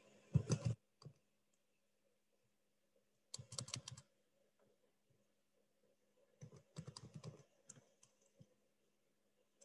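Typing on a computer keyboard: three short bursts of quick keystrokes, near the start, about a third of the way in, and about two-thirds through, with near silence between.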